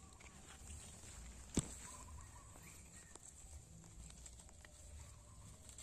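Faint rustling of oil palm fronds being pushed aside by hand, with scattered small ticks and one sharp click about a second and a half in.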